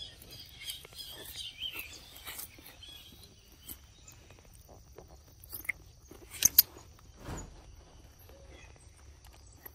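Birds chirping for the first two seconds or so, then scattered soft clicks and smacks from a macaque eating a piece of fruit, with two sharp clicks about six and a half seconds in.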